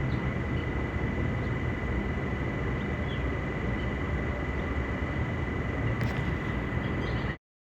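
Pan of shrimp in butter sauce cooking on the stove: a steady rumble and hiss with a few small scattered pops and a thin steady high whine. It cuts off abruptly near the end.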